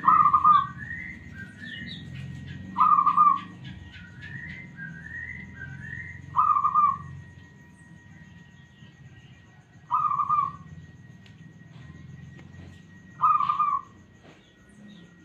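Zebra dove (perkutut) calling: five short, loud coos, about one every three and a half seconds, with fainter rising chirps from other birds behind.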